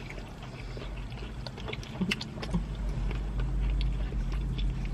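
Steady low rumble of a car's running engine heard inside the cabin, swelling about halfway through, with scattered light clicks and crunches.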